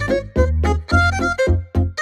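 Instrumental background music with a steady beat of short bass notes, about two a second, under melody notes.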